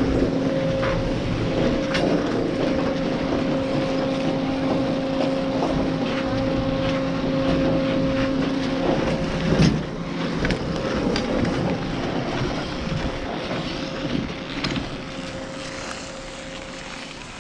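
Double chairlift at its loading station, its machinery humming with a steady tone, with scattered clicks and scrapes of skis on packed snow. A knock comes about nine and a half seconds in as the chair picks up the riders. The hum then fades as the chair carries them up the slope.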